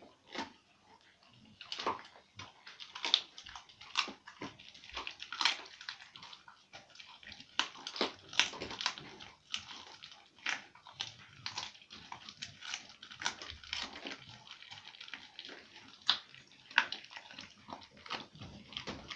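A dog eating raw food from a steel bowl: irregular chewing and smacking, several sounds a second, some sharper than others.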